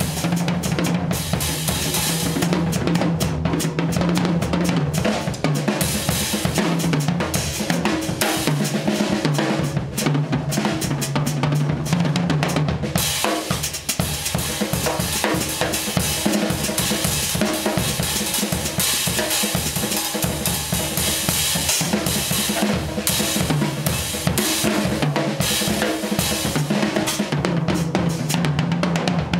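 An older Sonor acoustic drum kit played in a fast, busy drum solo: rapid snare and tom strokes over bass drum, with cymbals washing throughout.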